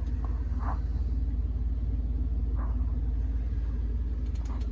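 A steady low rumble, with a few faint brief sounds over it.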